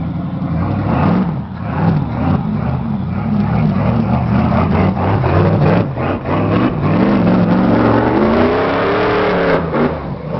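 Off-road Jeep Scrambler buggy's 502 V8 revving hard under load, its pitch rising and falling again and again as it crawls up a rocky slope. Near the end the revs climb in a long sweep as the wheels spin and throw dirt.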